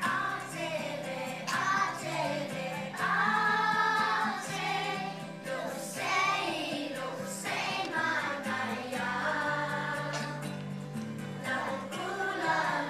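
A group of young children singing an action song together over a recorded musical backing track with a steady bass line.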